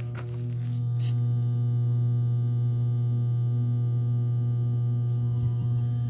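Whirlpool direct-drive washing machine motor powered on but not turning, giving a loud, steady electrical hum. This is the sign of a stalled motor, which the owner takes for more than likely a bad motor since a replacement capacitor did not cure it.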